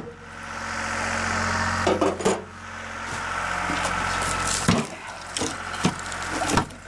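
A small engine running steadily, with a handful of sharp knocks from a tool striking the logs and metal of the sawmill.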